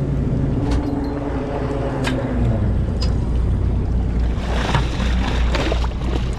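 Fishing boat's engine running steadily with a low drone while longline gear is hauled, with a few sharp ticks. About four and a half seconds in, water splashes at the hull as a hooked halibut thrashes at the surface.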